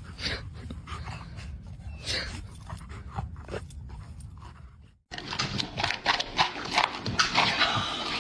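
A dog panting, with a few short sniffs. About five seconds in, the sound cuts to a louder run of quick clicks and scuffles.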